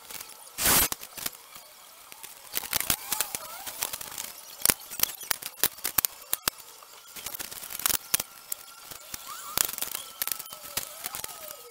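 Pine boards being laid onto a wooden frame and a stack of boards, clacking and knocking against each other in a run of sharp wooden knocks. A louder, longer rasp comes just under a second in.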